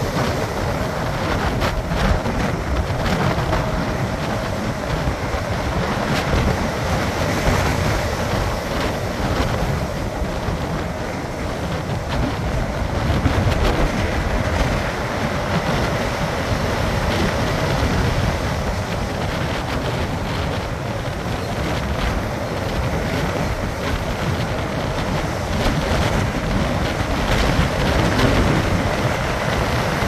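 Heavy storm surf breaking on a beach with strong wind buffeting the microphone: a continuous loud rush of waves and wind with no distinct separate crashes.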